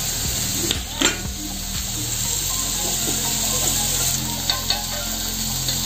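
Masala-coated pineapple slices sizzling steadily as they fry in ghee on a hot tava. A few sharp clicks of a utensil against the pan come about a second in and again near the end.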